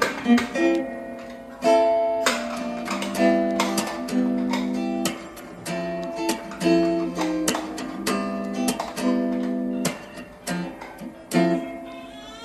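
Background music: a melody of plucked acoustic guitar notes.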